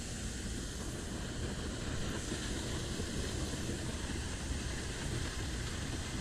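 Steady rush of water flowing below a dam spillway, a constant even noise with no distinct events.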